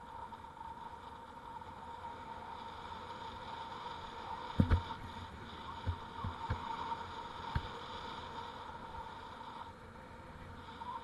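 Bicycle rolling along pavement: steady tyre and road noise, with a handful of sharp knocks from jolts over bumps, the loudest about four and a half seconds in.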